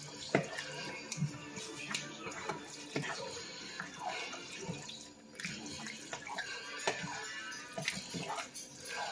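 A utensil stirring and tossing spaghetti in tomato sauce in a pan, with wet squelching and frequent clinks and scrapes against the pan.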